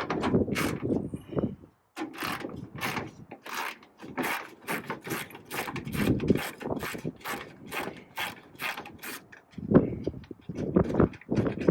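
Hand ratcheting tool clicking in quick, evenly repeated strokes as it backs out a screw holding the truck's upper grille, with a short pause about two seconds in.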